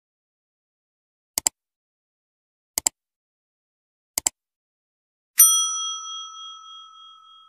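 Subscribe-animation sound effects: three short double mouse-clicks, one on each button, then a bright notification-bell ding that rings on and slowly fades.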